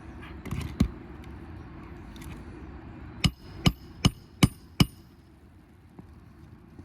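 Hammer driving a roofing nail through an asphalt shingle: five quick ringing strikes in under two seconds, after a single knock near the start.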